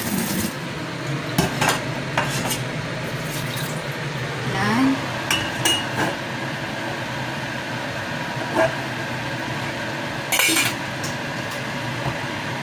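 Stainless steel saucepan and its lid handled and set down on a stove: a series of separate metal clinks and knocks over a steady background hum. A running tap stops about half a second in.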